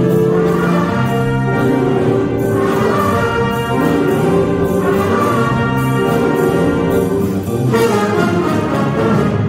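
Jazz big band playing a funk tune: saxophones, trumpets and trombones sounding sustained chords together, with fuller, brighter ensemble chords coming in every few seconds.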